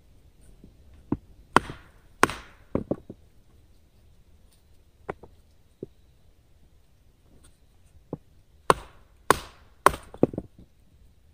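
Firewood being chopped by hand: sharp strikes into wood, a quick run of about half a dozen blows, a few single blows, then another quick run near the end.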